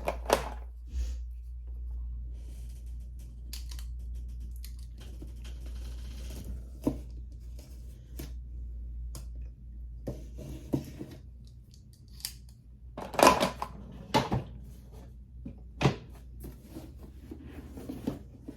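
A cardboard shipping box being cut open: scattered scraping, snipping and rustling as the packing tape is cut, with a few louder sharp snaps and knocks later on, over a low steady hum.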